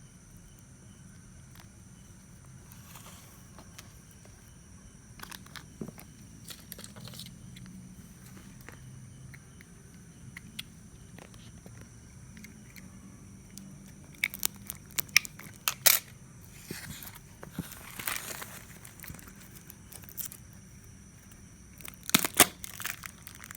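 Plastic packaging and tape on a shipped colony box being pulled and torn open by hand, with crinkling, scattered clicks and several louder sharp rips in the second half.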